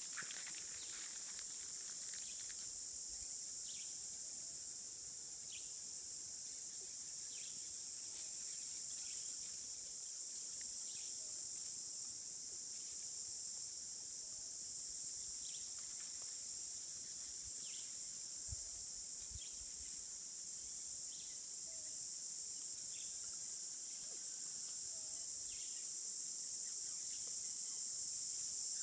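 Steady high-pitched insect drone, with scattered short chirps every second or two.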